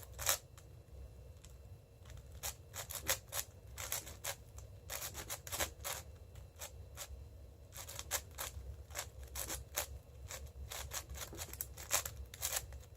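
Plastic 6x6 speedcube being turned fast during a solve: rapid clacking and scraping of the layers, in quick bursts of several turns with short pauses between.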